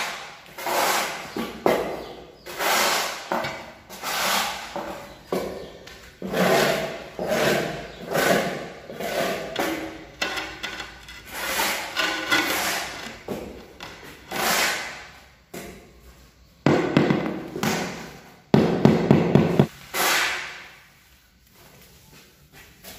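Background music with a steady beat, which fades out near the end.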